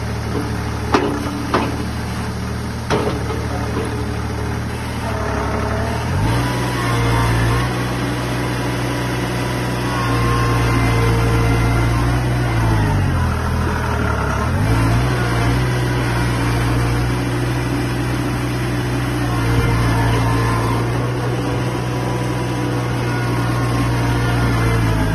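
Engine of a mini tracked skid steer loader running, with a few knocks in the first three seconds. About six seconds in the engine speeds up. Around the middle it briefly sags in speed and recovers, then runs steadily.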